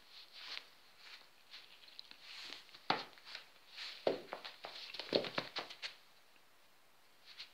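Scattered rustling and soft thuds from a cat dragging and dropping a ring of sausage on a carpet, with a few sharper knocks in the middle, then quieter near the end.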